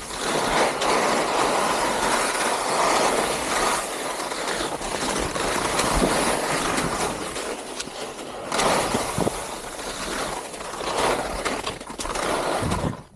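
Touring skis sliding and scraping over snow: a continuous hiss that rises and falls in loudness as the skier turns.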